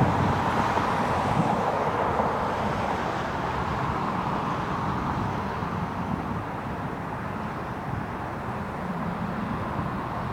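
Jet airliner engine noise, a steady rushing sound that slowly fades as the aircraft moves away.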